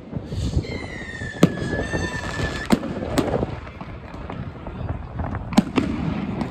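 New Year's Eve fireworks: scattered sharp bangs of firecrackers and shells over a continuous rumble of explosions. A high whistle from a whistling firework falls slightly in pitch, starting about half a second in and lasting about two seconds.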